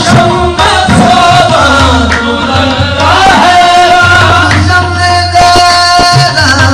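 Qawwali music: a voice singing long, wavering notes over harmonium and hand-drum accompaniment.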